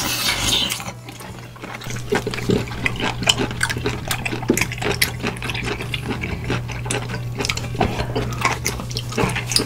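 A short splash or pour of liquid, then a run of small, irregular wet clicks and taps.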